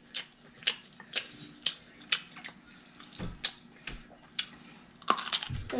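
Close-miked eating: wet mouth smacks and chewing clicks, short and irregular, about two a second.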